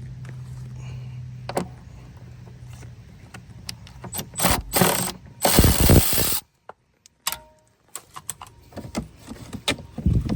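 Hand ratchet and socket clicking while undoing a small 10 mm plastic nut on a wheel-well shield, with scattered clicks and handling knocks. A loud rasping burst comes about five and a half seconds in and cuts off suddenly, then the clicking resumes.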